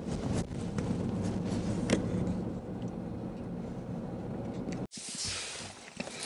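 Inside a moving car: a steady low rumble of engine and road noise, which cuts off abruptly about five seconds in, leaving a quieter hiss.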